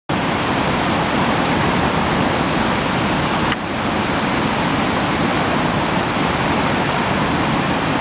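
Steady rush of a river's whitewater cascade pouring over smooth rock. The sound dips briefly about three and a half seconds in.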